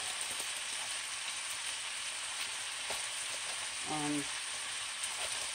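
Slivered cabbage stir-frying in margarine in a large skillet over high heat: a steady sizzling hiss.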